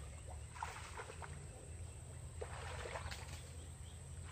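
Faint splashing and sloshing of water, in a few separate bursts, over a low steady rumble.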